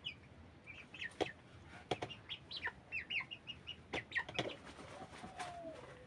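Broiler chickens peeping: many short, high chirps in quick runs, with a few sharp clicks among them. About five seconds in there is one longer, lower call that slides slightly downward.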